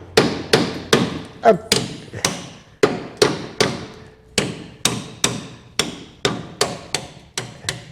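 Steady hammer blows on steel, about three a second with a few short pauses, each strike ringing briefly: knocking the front leaf-spring clamps of a 1946 Willys CJ2A loose.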